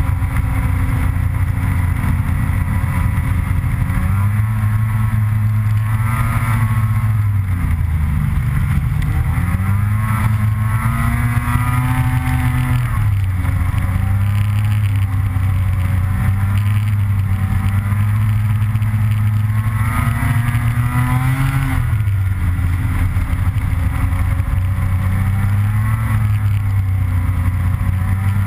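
Snowmobile engine running at speed along a groomed trail, a steady drone whose pitch rises and falls several times.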